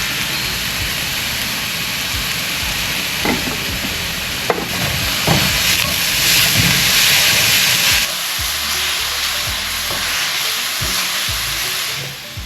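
Finely chopped mushrooms sizzling in olive oil in a hot cast-iron pan, a steady hiss as they release their moisture. There are a few knocks of stirring early on, the sizzle grows louder in the middle, and it drops off just before the end.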